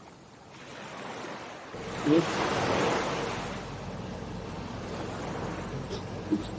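Sea and wind ambience: waves washing with wind noise, swelling about two seconds in and then holding steady. A brief voice-like sound stands out about two seconds in.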